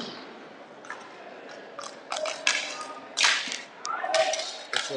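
Inline hockey play: a string of short, sharp slaps and scrapes from sticks, ball and skates on the rink, irregularly spaced, with the loudest about three seconds in.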